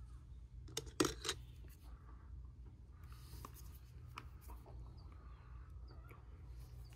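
Handling noises: a quick cluster of knocks and scrapes about a second in, then a few scattered light clicks, over a steady low rumble.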